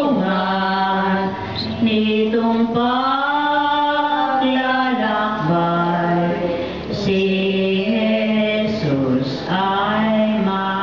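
Voices singing a slow, chant-like hymn in one melody line, with long held notes that move step by step and short breaths between phrases.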